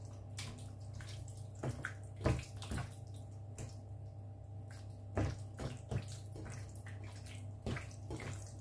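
Wet squelching as a hand squeezes and turns raw chicken wings in a bowl of marinade sauce, in scattered short squishes. A steady low hum runs underneath.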